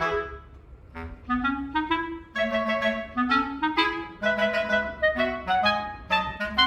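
Background music: a light, bouncy clarinet-led tune with a steady low accompaniment, pausing briefly near the start before the melody resumes.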